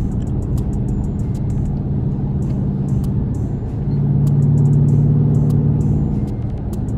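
Dodge Charger engine and road noise heard from inside the car while driving, the engine note swelling about four seconds in as it accelerates, then easing back.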